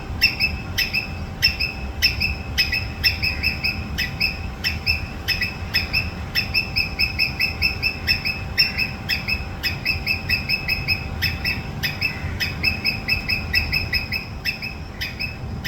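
Squirrel giving a long series of short, sharp chirping calls, several a second, in runs broken by brief pauses.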